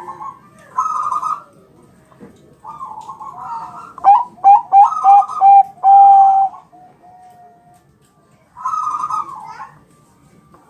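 Zebra dove (Bangkok-type perkutut) cooing: rolling coo phrases, with a run of several loud, clear coos about four seconds in and another phrase near the end.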